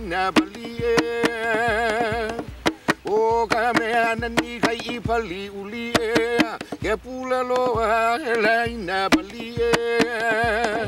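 Hawaiian hula chant: one voice holding long notes with a strong wavering vibrato, pausing briefly between phrases, over sharp percussion strikes with a low thump.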